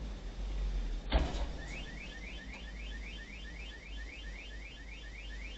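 A single sharp knock about a second in, then a car alarm sounding: a rapid string of short rising chirps, about five a second, over a low steady engine hum.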